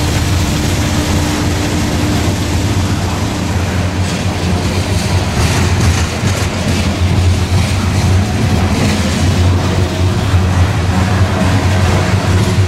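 Coal hopper cars of a freight train rolling past on the rails: a steady heavy rumble, with wheel clatter over the rail joints through the middle.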